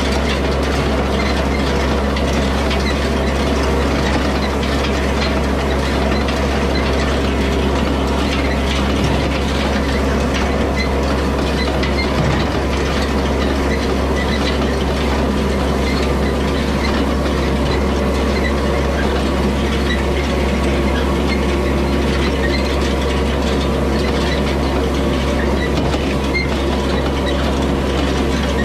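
Yanmar tractor's diesel engine running steadily, with the rattle and light clicking of an antique side-delivery hay rake turning hay into windrows behind it.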